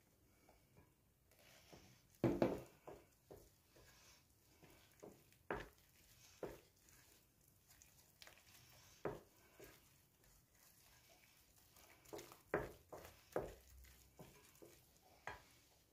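A wooden spoon stirring flour into a wet dough mixture in a bowl: soft scraping with irregular knocks of the spoon against the bowl, the loudest about two seconds in and a cluster near the end.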